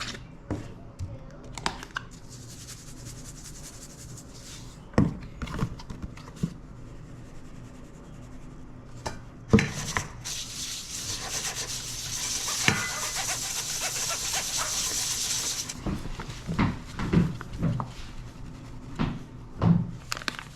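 Kitchen prep: dishes and utensils knocking, clinking and rubbing, with a steady hiss for about six seconds in the middle.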